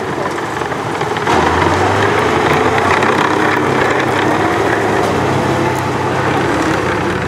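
Tracked tank's engine running under load as it drives past, a steady rumble that gets louder about a second in.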